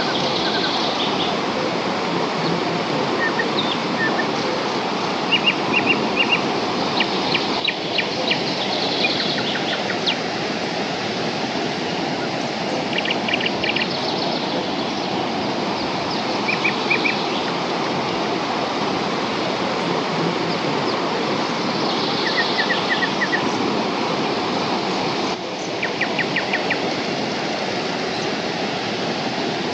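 A waterfall's steady roar of falling water, with short bursts of quick bird chirps over it every few seconds.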